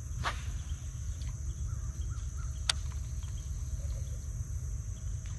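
A steady high drone of insects over a low rumble, broken by two sharp clicks, one just after the start and one about halfway through.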